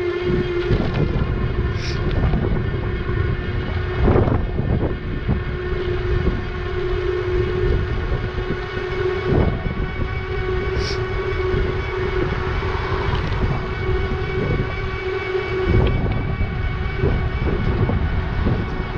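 Wind buffeting the handlebar microphone of a moving e-bike, over the steady, even-pitched whine of its electric motor, with a few short knocks from bumps in the road.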